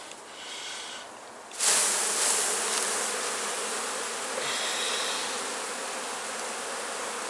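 Honeybees buzzing at an open hive. About a second and a half in, the buzz jumps suddenly much louder and stays up as bees are shaken off a brood frame and take to the air.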